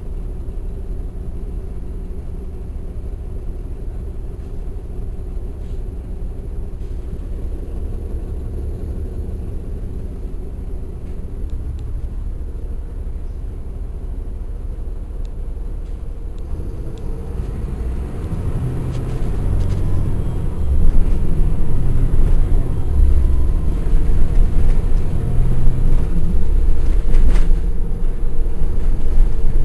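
Caterpillar C13 ACERT diesel engine of a 2009 NABI 416.15 transit bus, heard from the back of the bus, running steadily at low revs. About two-thirds of the way in it gets much louder and deeper as the engine works hard, typical of the bus pulling away under load.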